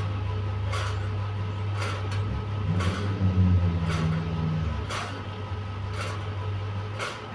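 Fan running with a steady low hum and a sharp click about once a second, the strange noise it is making. A deeper hum swells for about two seconds in the middle.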